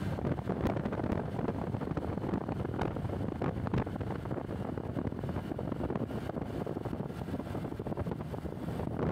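Wind rushing over the microphone of a moving rider, with the rumble of the ride and the road underneath, steady throughout.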